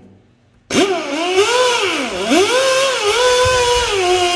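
Air die grinder with a wire wheel brush starting up under a second in and running slow, its whine rising and dipping as it is throttled and pressed against the aluminium cylinder head, scrubbing corrosion and exhaust carbon off the manifold face.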